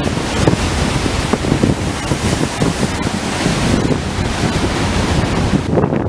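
Ocean surf breaking and washing up the beach in a steady rush, with wind buffeting the microphone in low gusts. The high hiss of the surf thins out near the end.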